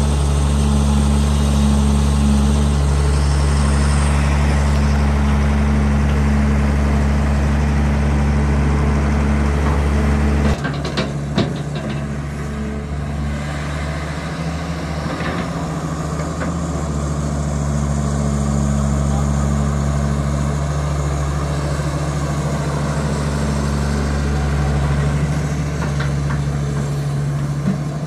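John Deere 595 excavator's diesel engine running steadily with a low hum. About ten seconds in the sound drops abruptly and a few sharp knocks follow.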